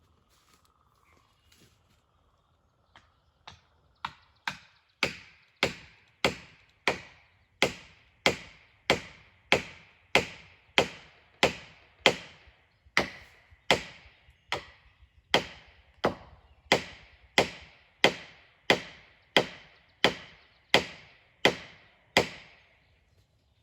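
Wood being chopped: a long run of even, sharp blows, about one and a half a second, starting light and quickly growing loud, then stopping near the end.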